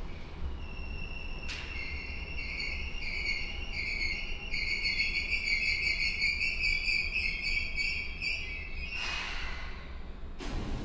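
Electronic station platform chime or departure melody: a repeating pattern of high notes that steps back and forth for about eight seconds, heard from inside a stopped commuter train over the low hum of its equipment. Near the end comes a burst of hiss, then a louder thud.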